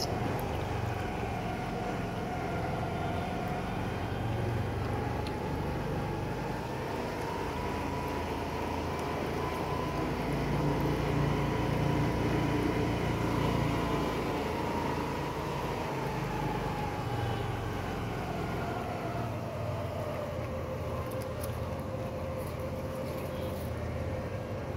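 A vehicle runs with a steady low rumble. Over it, a long whine slowly rises in pitch, holds, then falls again.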